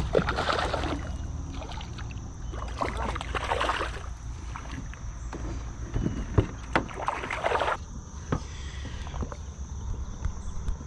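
Hooked smallmouth bass splashing at the water's surface beside a plastic kayak as it is brought in: three short splashes, about a second in, near the middle and later on. A few sharp knocks come between the last two as the fish is landed.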